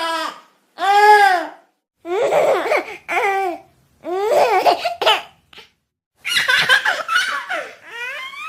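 Laughter sound effect of a pink baby fox character: a run of short, high-pitched laughs about a second apart, then a longer, breathier laugh about six seconds in and a falling, drawn-out laugh near the end.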